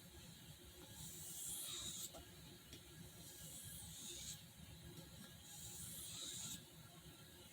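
Knife blade drawn over a soft Arkansas oilstone in light, no-pressure finishing strokes: a faint hissing scrape about once every two seconds, three strokes in all.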